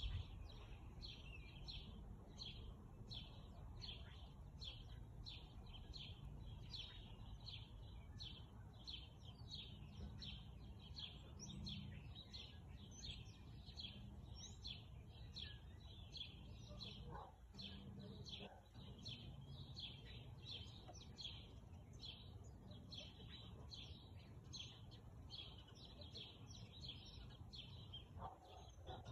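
Faint birdsong: a rapid, steady run of short high chirps, about three a second, over a low background rumble.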